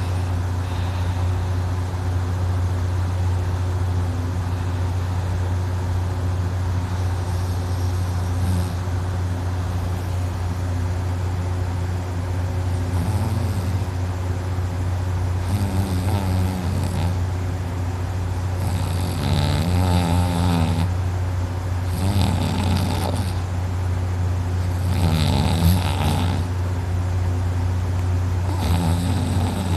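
A person snoring heavily in deep, drunken sleep while lying flat on her back, the soft palate and uvula fluttering. One snoring breath comes about a quarter of the way in, and from about halfway they come every three seconds or so, over a constant low drone.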